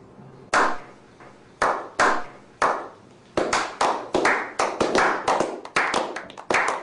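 A slow clap by a small group of people: single sharp handclaps spaced about half a second to a second apart, speeding up about halfway through into quicker clapping by several pairs of hands.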